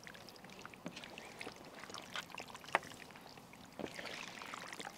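Faint, irregular wet squelches and soft slaps as handfuls of thick yogurt-marinated chicken pieces are lifted and dropped back onto the heap in a large metal pan.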